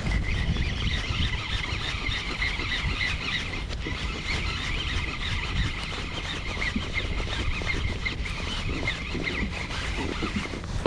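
Baitcasting reel being cranked steadily, its gears giving an even, high whine as line is wound in. The winding stops just before the end. Wind rumbles on the microphone underneath.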